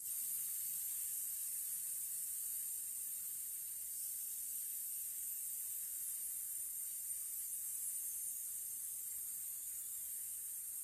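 A woman hissing one long, steady 'sss' through her teeth, held without a break as a singer's breath-support exercise, and fading only slightly toward the end.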